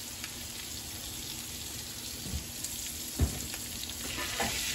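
Pork chops sizzling in melted butter in a cast iron skillet, a steady frying hiss, with one short low thump about three seconds in.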